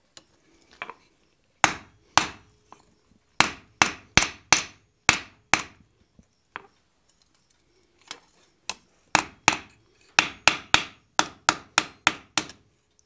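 Hand hammer striking an iron bar on the anvil: a run of sharp, ringing blows that stops for about two seconds near the middle, then resumes faster, at about three blows a second.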